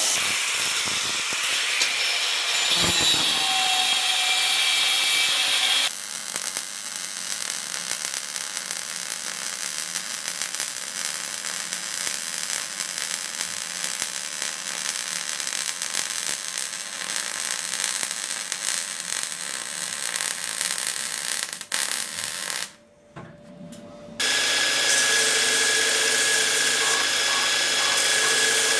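Belt grinder running while a small steel part is ground against the abrasive belt. About six seconds in this gives way to the steady crackle of electric arc welding, which lasts some sixteen seconds. After a brief near-quiet moment the belt grinder is heard grinding steel again, with the steady hum of its motor under the grinding.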